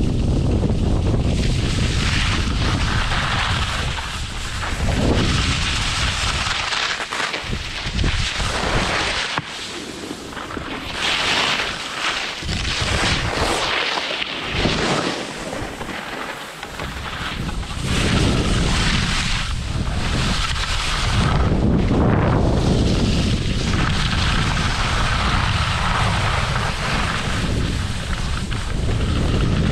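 Wind buffeting an action camera's microphone during a downhill ski run, along with the hiss of skis sliding on packed snow. The hiss swells and fades through the turns.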